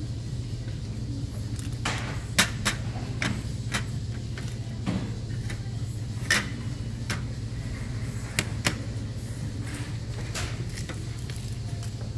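Small ceramic side dishes being set down one after another on a restaurant table, a dozen or so sharp clinks and clacks at uneven intervals, over a steady low hum.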